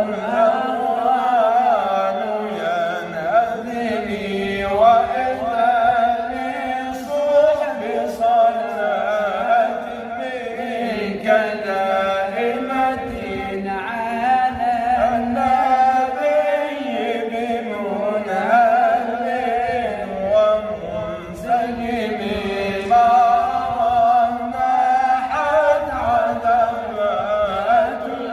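A man chanting an Arabic devotional poem in long, ornamented melodic phrases, his voice wavering and gliding in pitch without pause.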